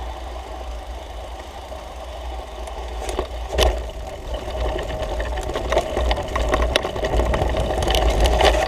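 Mountain bike riding over a dirt trail: tyre noise and rattles from the bike, with wind rumbling on the camera microphone. A sharp knock comes about three and a half seconds in, and the noise grows louder toward the end.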